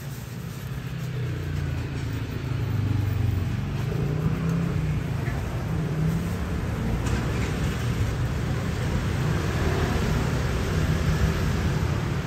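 A motor vehicle's engine running, a steady low rumble that swells over the first few seconds and then holds.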